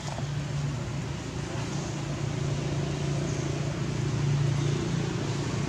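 Steady low hum of a motor engine running, over a background of noise, growing slightly louder about four seconds in.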